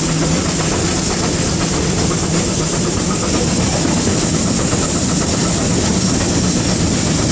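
Steady din on the footplate of GWR 5600-class 0-6-2 tank locomotive No. 6619 under way: running gear and rail noise mixed with steam hiss, loud and even with no distinct beat.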